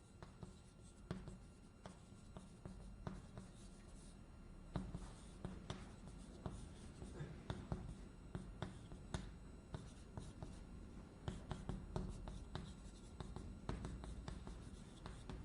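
Writing on a board during a lecture: faint, short scratchy strokes and taps in an irregular run, over a low steady room hum.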